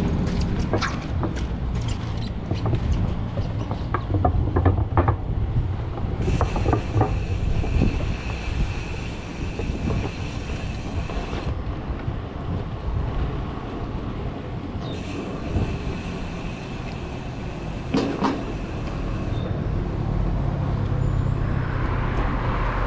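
Steady rumbling wind and road noise from riding a bicycle on the road, with scattered clicks and knocks. Twice a high steady buzz comes in, for about five seconds and then about four, and stops abruptly.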